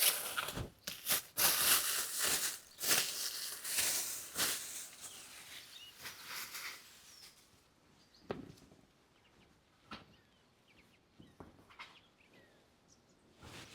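Dense rustling and crinkling for the first half, thinning out to a few scattered clicks over a quiet outdoor background with faint bird chirps.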